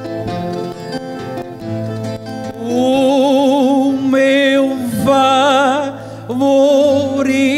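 Plucked-string accompaniment for a sung verse duel (cantoria) plays an interlude. About three seconds in, a male singer comes in over it with a long held note with strong vibrato. The note breaks briefly near six seconds and resumes.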